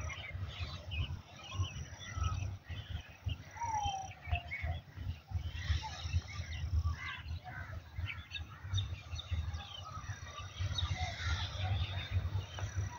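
Many small birds chirping and calling together, with short chirps and an occasional sliding whistle, over an uneven low rumble.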